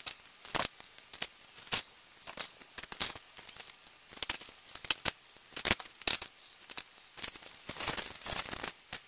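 Small metal jewellery chain links clinking and rattling as they are handled, in quick, irregular clicks. A plastic bag crinkles near the end.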